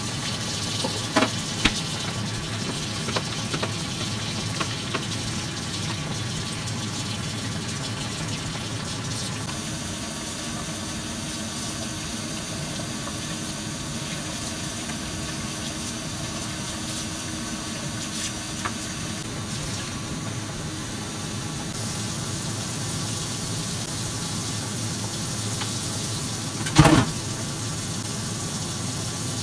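Steady sizzling hiss of food frying in a pan. Two sharp utensil clicks come about a second in, and one loud knock comes near the end.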